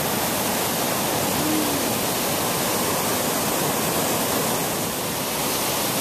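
Steady, even rush of water from a waterfall, with no break or change in level.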